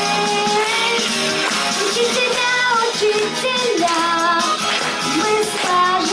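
A child's voice singing a pop song over instrumental accompaniment.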